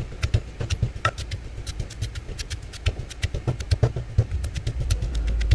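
Wooden pestle pounding in a clay mortar (Thai krok), crushing garlic, red chilies, coriander root and ginger into a paste: rapid, evenly spaced knocks, about five a second.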